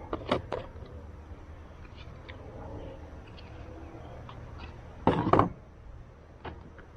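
Clicks and knocks of a chainsaw's plastic top cover being worked off and handled, with a louder clatter about five seconds in.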